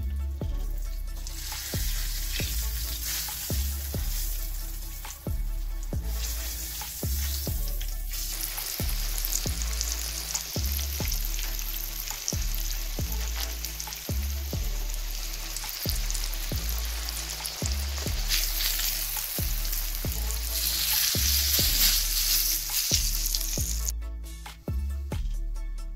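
Battered zucchini slices frying in hot oil, a steady sizzle that grows louder about a third of the way in and cuts off shortly before the end. Background music with a steady low beat plays throughout.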